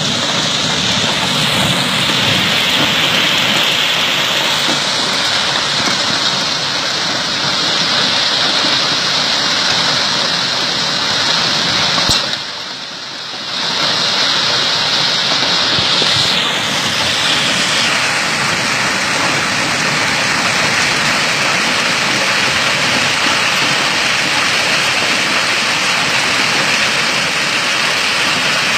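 Heavy rain pouring down in a thunderstorm downpour, a steady hiss that dips briefly about twelve seconds in.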